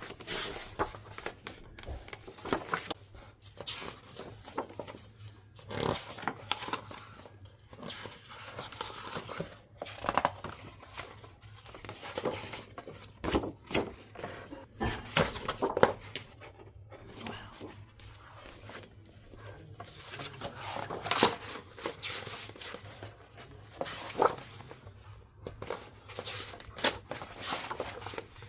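Paper and plastic rustling, with irregular clicks and crinkles, as K-pop albums and photo books are handled and flipped through.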